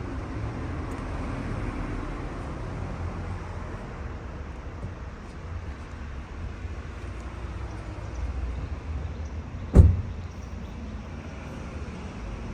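Steady low rumble of background noise, with one sharp thump a little under ten seconds in.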